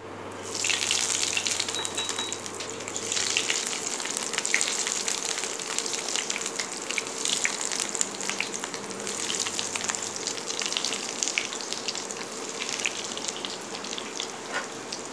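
Breaded chicken nuggets sizzling and crackling as they fry in hot oil in a frying pan. The sizzle surges about half a second in and again around three seconds in as more pieces are dropped into the oil.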